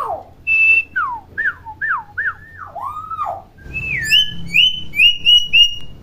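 Common hill myna whistling: a short steady high note, then a string of swooping whistled slurs, then a falling whistle and a quick run of short rising notes, about three a second.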